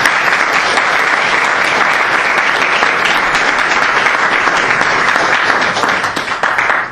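Audience applauding: steady, dense clapping that thins out near the end.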